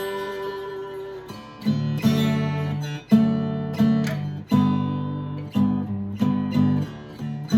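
Washburn dreadnought acoustic guitar played with a slide, working through a harmonized scale in D. A held chord rings and fades for the first second or so, then about ten chords follow one after another, each struck sharply and left to ring.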